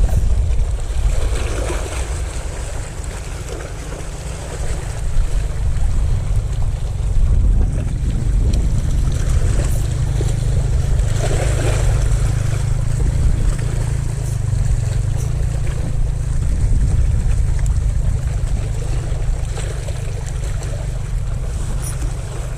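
Wind rumbling on the microphone over the wash of sea water, with two brief swells of water noise.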